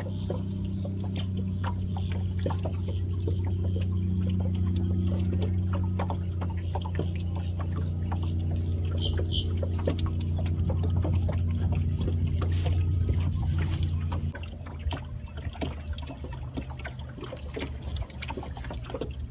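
Another boat's motor running as it comes in, growing louder over the first dozen seconds and then dropping off suddenly about 14 seconds in. Small splashes of water lapping are heard throughout.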